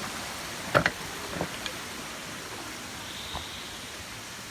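Steady rush of water from a waterfall, with a sharp knock a little under a second in and two softer ones shortly after.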